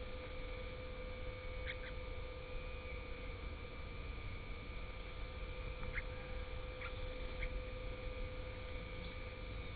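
Steady low hum with a constant tone over it, broken by a few short, high bird chirps: a quick pair near the start and three more spaced about half a second to a second apart later on.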